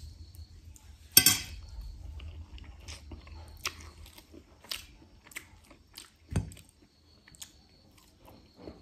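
Close-up eating sounds: a loud slurp of spicy noodles about a second in, then wet mouth-smacking chewing with scattered short clicks.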